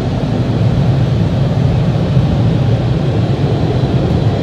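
Car wash tunnel's bank of air blower dryers blasting the car, a loud, steady rushing like a tornado, heard from inside the car's cabin.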